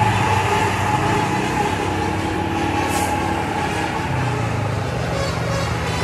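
Tour bus diesel engine running steadily with a low hum, close up, with a brief hiss about halfway through.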